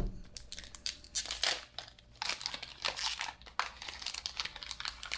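Pokémon trading card booster pack's foil wrapper crinkling and tearing as it is ripped open by hand, a dense run of irregular crackles.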